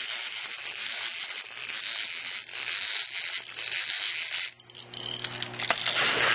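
Clockwork mechanisms of small wind-up walking animal toys whirring and clicking rapidly as their gear trains run down. The clicking drops away briefly a little past the middle, then starts again.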